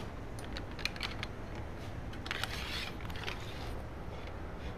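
ZipDee awning rafter and arm hardware being handled: scattered light clicks and a short scraping slide about two seconds in, as the released rafter is taken out and hung back on its hook.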